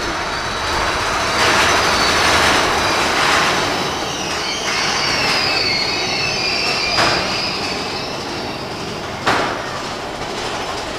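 Mine-train roller coaster cars rattling along the track, with the wheels squealing high for a few seconds in the middle and two sharp knocks in the second half.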